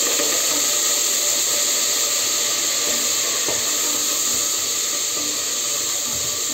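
Boiled bone-in meat sizzling in hot olive and sunflower oil in a pot: a steady hiss that eases a little toward the end.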